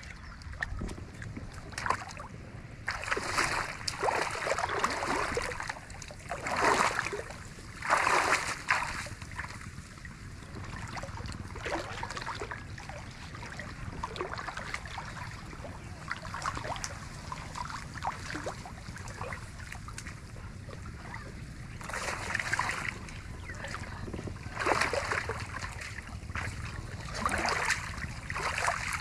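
Water splashing and sloshing in uneven bursts a second or so long, several seconds apart, over a steady low background.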